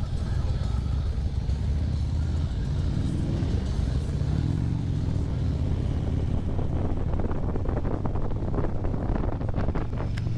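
Harley-Davidson motorcycle engine running steadily while the bike is ridden, a continuous low rumble.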